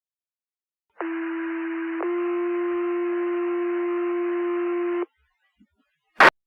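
Two-tone sequential pager alert sent over the fire dispatch radio channel to call out volunteer firefighters: a steady tone for about a second, then a slightly higher tone held for about three seconds, with radio hiss behind it. A sharp radio click comes near the end.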